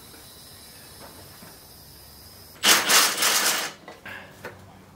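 A loud burst of rapid rattling mechanical impacts, about a second long, starting about two and a half seconds in, followed by a few faint clicks.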